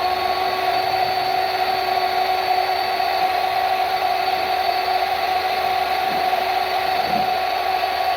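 A woodworking power tool or shop machine running steadily with an even, unchanging whine, not cutting.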